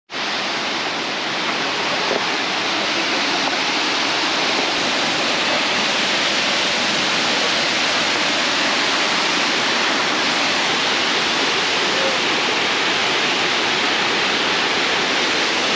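Narada Falls, a waterfall, pouring steadily: a loud, even rush of falling water.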